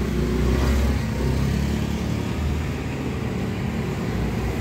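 Steady low engine rumble, like a motor vehicle running at idle.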